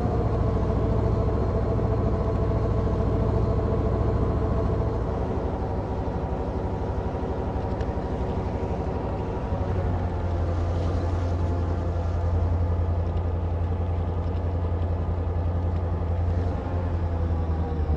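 Steady running drone of a railcar: a strong low hum with several steady higher tones above it, which dip slightly in pitch about halfway through.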